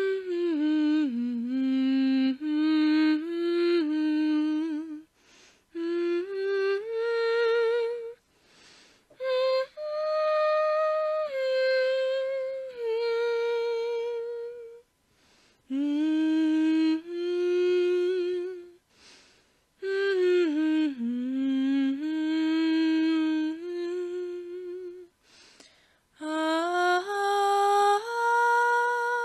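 A single voice humming a wordless tune, unaccompanied, in phrases of a few seconds with short pauses between them.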